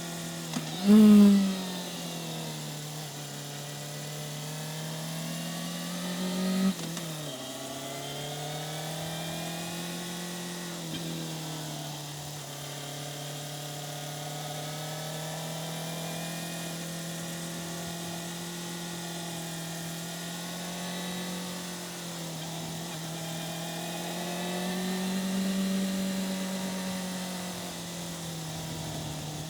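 2005 Yamaha FZ6's inline-four engine running on the move, its revs rising and falling slowly. A short, loud rev comes about a second in, and a climb in revs drops off abruptly near seven seconds, as at a gear change.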